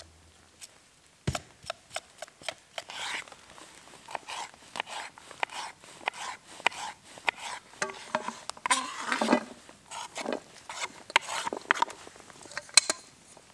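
Knife cutting a red pepper on a wooden cutting board: an irregular run of sharp taps as the blade strikes the board, with short scrapes in between. Near the end the diced pieces are scraped off into a metal pot.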